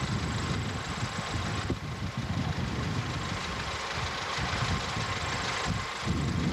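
Engine of an old military-style open jeep idling, a low uneven rumble.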